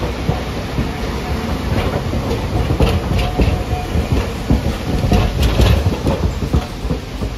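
Hiroshima Electric Railway streetcar no. 813 rolling past, its wheels clacking over the track in an irregular run of knocks over a low rumble. It is loudest in the middle as the car goes by, and eases near the end.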